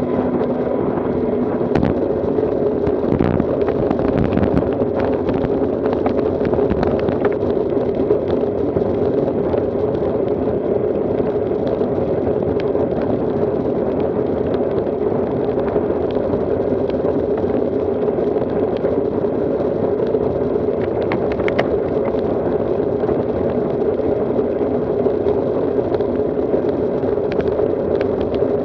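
Steady rushing wind buffeting the microphone, with tyre and road noise from road bicycles riding at speed. Sharp clicks and knocks come between about two and seven seconds in and again about 21 seconds in.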